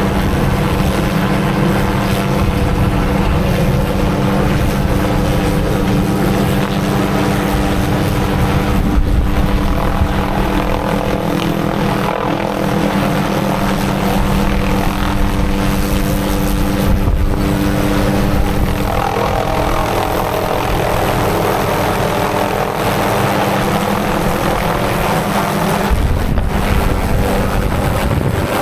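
MD 500D helicopter running steadily, with its turbine and rotor making a loud, continuous sound and a constant low hum.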